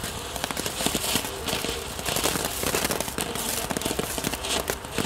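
Small WECO Flitze Feuerstein ground firework spraying sparks with dense, rapid crackling pops.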